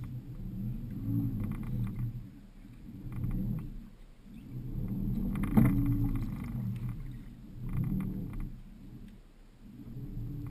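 Small robotic boat's electric thrusters whirring, swelling and fading in surges every two to three seconds as their pitch rises and falls. A sharp knock comes about halfway through.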